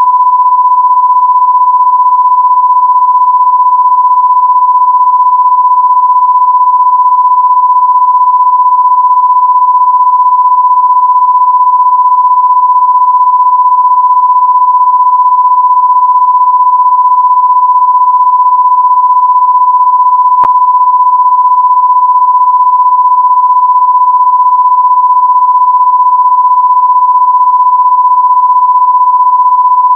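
Loud electronic sine tone held at one unchanging pitch, with a faint click about twenty seconds in.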